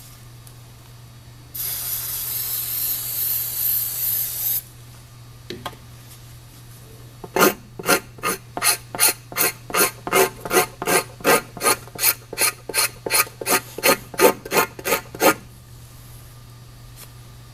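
Rubber cleaner aerosol sprayed onto a tire's inner liner in one hiss of about three seconds. A few seconds later a hand rubber scraper is drawn over the wet liner in about twenty quick scraping strokes, roughly three a second, to remove silicones and mold release agents.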